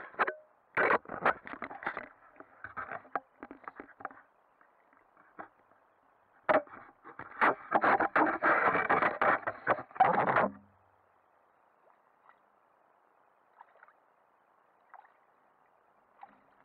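Muffled knocking, scraping and splashing of water against an action camera's waterproof housing as it is handled at the waterline, in two busy spells of irregular clatter, the second ending about ten seconds in, followed by faint hiss with a few small ticks.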